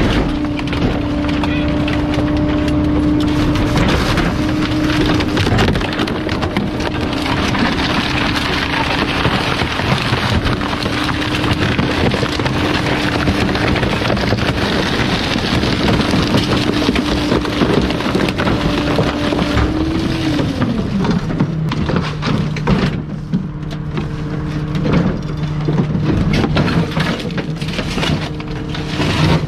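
A bulk-waste garbage truck's engine runs at raised speed under dense crackling and crunching as its hydraulic packer crushes bulky waste. About twenty seconds in, the engine speed glides down to idle.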